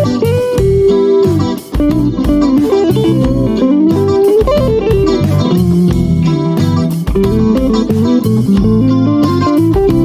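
Instrumental music: a guitar carrying a melody over bass and a steady beat.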